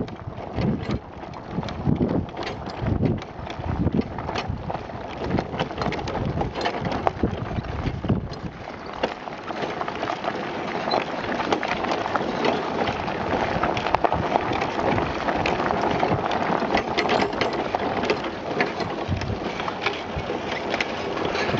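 Pedal go-kart rolling over gravel: a steady crunching rattle of small clicks from the tyres and the kart's frame.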